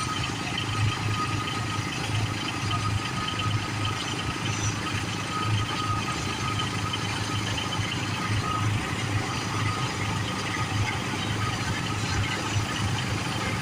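Combine harvester's engine running steadily, with a faint, steady high-pitched whine over the low engine drone.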